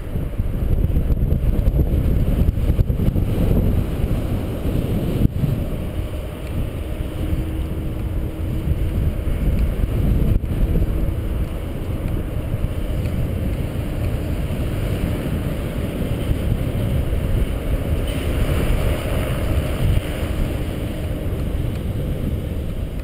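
Wind buffeting the microphone of a paraglider pilot's camera in flight on the approach to landing: a steady low rumble.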